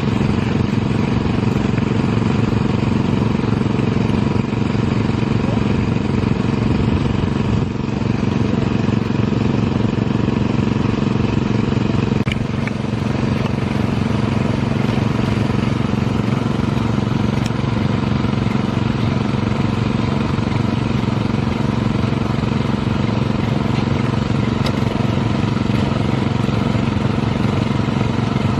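Rice transplanter engine running steadily at a constant speed, with brief small dips in level about 8 and 12 seconds in.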